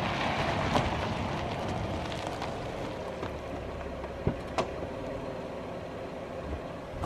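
Car tyre and road noise on a wet road: a steady rushing hiss that swells about a second in and slowly eases off, with a few light clicks.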